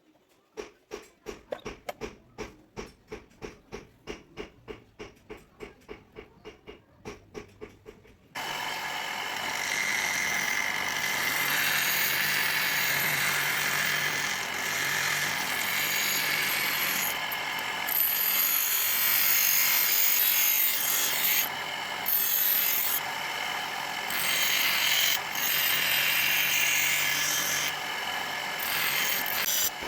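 Steel being filed by hand in even strokes, about two to three a second. Just over eight seconds in, an electric grinder starts suddenly and runs loud and steady on the steel, dipping briefly a few times as it eases off the work.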